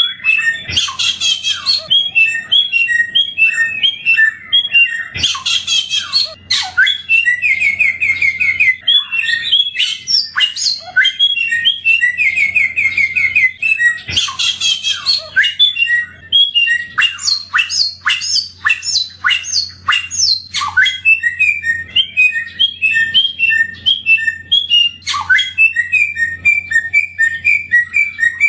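Samyong songbird singing steadily: a fast, varied song of repeated whistled phrases, chattering trills and quick rattling notes, with hardly a pause.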